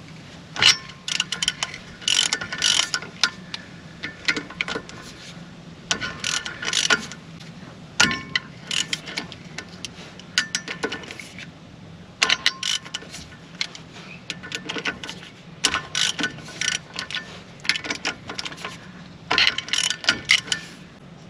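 Hand socket ratchet clicking in quick runs with short pauses between them, as the 12 mm nuts on a free-wheeling locking hub are undone one after another.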